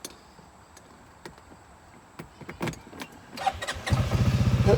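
A few light clicks, then near the end the CFMoto four-wheeler's engine starts and settles into a steady, rapidly pulsing run.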